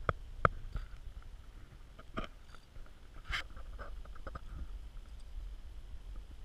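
A handful of sharp clicks and knocks from via ferrata climbing gear, carabiners and lanyard against the steel cable and rock, the loudest two in the first half-second, over a steady low rumble.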